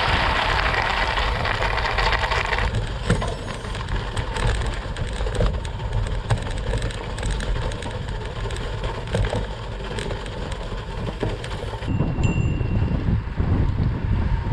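Wind buffeting the microphone over the rolling rumble of a mountain bike riding on a snowy trail, with scattered small knocks. The rush is brightest for the first couple of seconds, then settles to a lower rumble.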